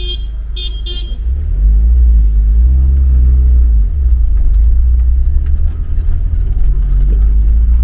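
Vehicle engine pulling away and speeding up, a loud low rumble that rises in pitch over the first few seconds. Short car-horn toots sound in the first second.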